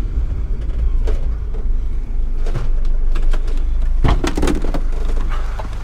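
Van engine and cab rumble with the vehicle running, broken about four seconds in by a cluster of sharp clunks and rattles; the rumble eases near the end.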